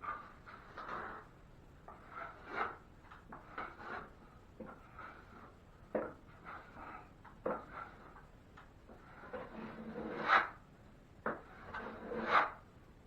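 Steel 6-inch drywall knife scraping across setting quick-set joint compound in a series of irregular strokes, the louder ones near the end, as the patch is slicked out and the extra material is taken off.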